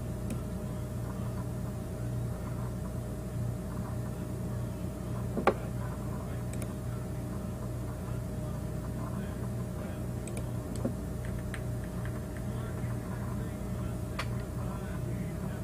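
Steady low electrical hum and room noise, with one sharp click about five and a half seconds in and a few fainter clicks later.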